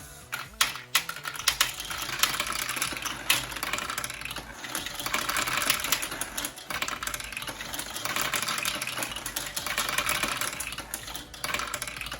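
Small marbles clattering against each other and the LEGO plastic of a marble printer as more are added to it, a dense stream of small clicks with a few sharper ones in the first second.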